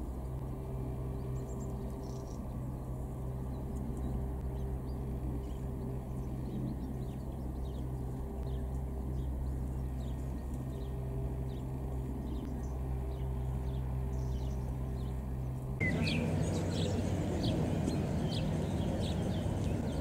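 Small songbirds chirping: short, scattered calls over a steady low hum. About four seconds before the end the background changes abruptly, turning louder, and the chirps come more often and more strongly.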